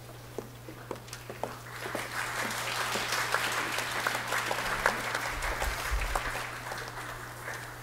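An audience applauding: the clapping swells about two seconds in and dies away near the end. Before it, a few sharp clicks of footsteps on a stage floor.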